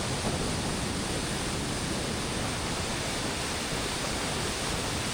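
Steady rushing roar of a waterfall, even and unbroken.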